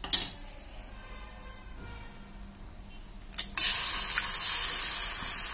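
An egg cracked open by hand, with a sharp tap at the start and two sharp cracks about three and a half seconds in. The egg then drops into hot oil in a non-stick frying pan and sizzles loudly and steadily.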